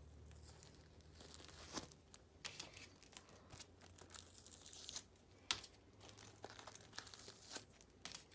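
Faint crinkling and tearing of packaging being opened by hand, with scattered small clicks and rustles.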